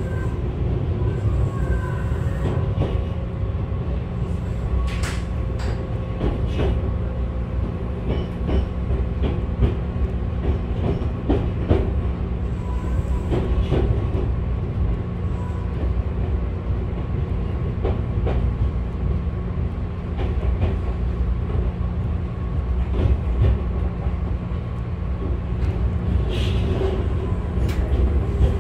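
Interior running noise of a Tobu 6050 series electric train: a steady low rumble from the wheels and track, with scattered clicks from rail joints.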